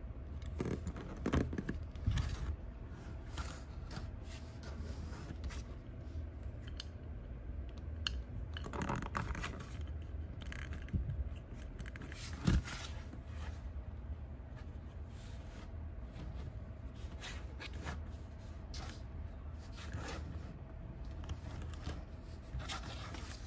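Hands handling a Lightning McQueen toy car fitted with spiked add-on armour: small clicks, rubs and scrapes of the toy's parts and fingers, with one sharp tap about halfway through.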